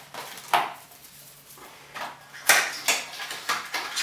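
Small cardboard carton being opened by hand: a few short, sharp crinkles and rustles of card and paper, the first about half a second in and a cluster near the end.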